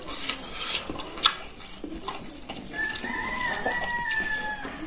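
A rooster crowing once, a long held call starting a little under three seconds in, over close eating sounds of smacking and clicks, with one sharp click about a second in.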